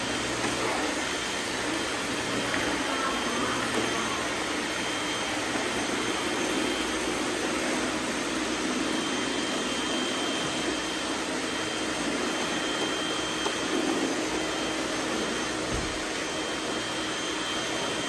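Several robot vacuums, among them an iRobot Roomba, running together as they sweep a bare concrete floor: a steady whir of motors and brushes with a thin high whine.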